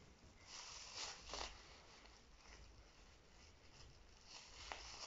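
Faint crinkling of a thin plastic bag being clutched and kicked by a cat, in two short bursts: about half a second in and again near the end, the second with a small click.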